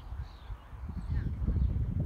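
Wind rumbling and buffeting the microphone in gusts, easing briefly about half a second in, with faint bird calls above it.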